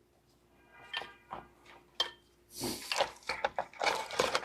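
Handling noises from an engine wiring harness being pushed and worked into place: light clicks and knocks of plastic clips and connectors, with a rustle of the harness a little past halfway.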